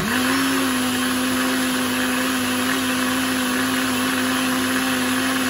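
Kenwood Blend Xtract jug blender motor running at a steady pitch, churning a full jug of fruit-and-milk smoothie. It comes up to speed at once at the start.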